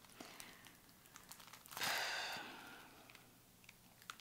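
A breathy sigh about two seconds in, starting sharply and trailing off over about a second, with a few faint small clicks around it.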